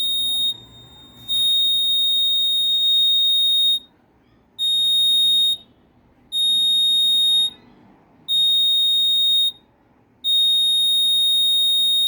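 Small alarm buzzer of a home-made BC547 transistor light-beam alarm sounding a high, steady tone in long beeps of one to two and a half seconds with short gaps between. It is going off because an obstacle has broken the torch beam falling on the LDR.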